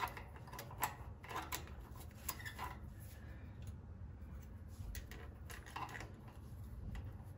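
Faint, irregular metallic clicks and scrapes as a coil brake return spring is stretched with a hook tool and its end worked against the tractor's brake lever and housing.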